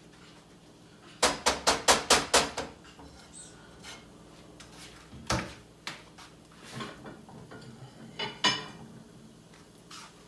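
A utensil clinking against a frying pan: a quick run of about seven taps a second or so in, then a few single knocks spaced out.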